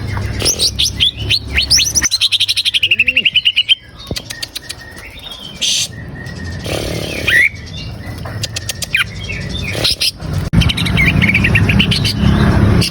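Cucak ijo (greater green leafbird) singing: rapid sharp whistled notes and chirps, with a fast rattling trill about two seconds in and more bursts of song near the end, over a low hum.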